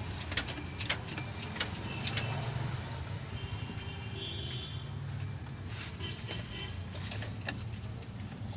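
Hino J05C four-cylinder diesel engine running with a steady low hum and sharp irregular clicks over it: the abnormal 'bad sound' being diagnosed.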